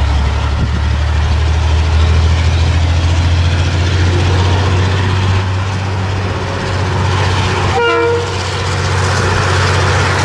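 Diesel-electric locomotive approaching, its engine a steady low rumble, with one short horn toot about eight seconds in.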